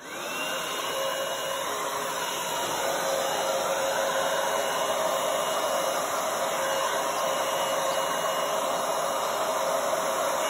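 Hair dryer with a flat concentrator nozzle switched on, its motor whining up to speed within the first half second, then running steadily at full blow as it pushes wet acrylic paint across a canvas.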